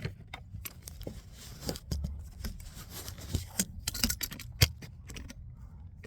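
Irregular clicks, knocks and light clatter from objects being handled, a few sharper knocks standing out.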